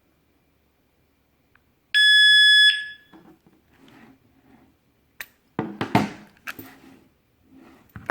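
Digital alarm padlock sounding one loud, steady, high-pitched beep lasting under a second, followed by several sharp clicks and knocks of the lock's metal parts being handled.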